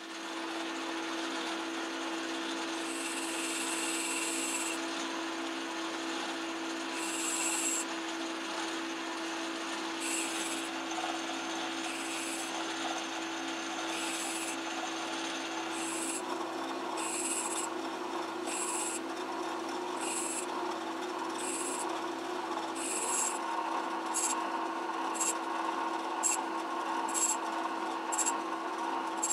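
Metal lathe running with a steady hum while the tool takes short cuts across a spinning aluminium pulley, shaping its crowned flat-belt surface. The cuts come as brief hissing bursts, every second or two at first and closer together near the end.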